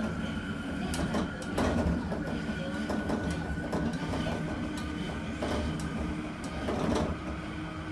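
Randen tram (Keifuku Electric Railroad) running along its track, heard from inside the car: the wheels click and clatter irregularly over the rails over a steady rumble and a thin steady whine.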